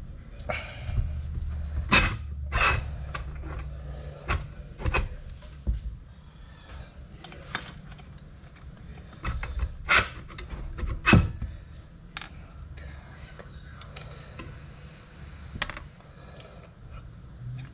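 Scattered knocks, clicks and scrapes of tools and metal parts being handled while a Hilti TE 1000 demolition hammer is taken apart. A low steady hum runs under the first six seconds or so.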